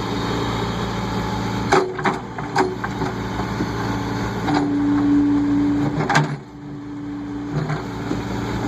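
Case 580E backhoe's diesel engine running while it digs, with a few sharp knocks and a steady higher tone that joins for about a second and a half near the middle.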